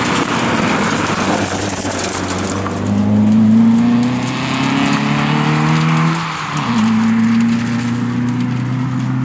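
Volkswagen Golf Mk1 rally car at speed: a close pass with a rush of tyre noise, then the engine revving up. Its pitch drops sharply at a gear change about six seconds in, and it pulls on in the next gear.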